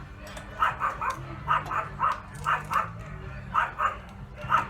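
A dog barking repeatedly: about a dozen short barks, often in quick pairs.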